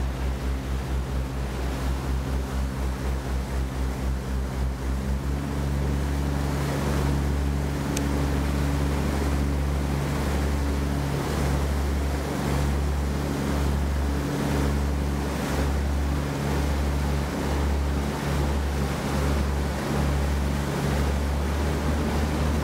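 A boat engine running under way with a low drone, over the rush of the wake water and wind buffeting the microphone. About five seconds in, the engine's fast throb settles into a steadier, slightly louder drone.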